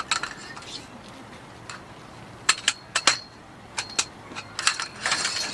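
Camping gear being handled and fitted together: irregular sharp clicks and light metallic clinks, a few at the start, then a busier cluster in the second half with a faint ring.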